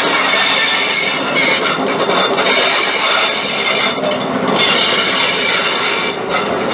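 Passenger coaches of a steam-hauled train rolling past on a curve, their steel wheels squealing against the rails with a steady rumble of running gear underneath.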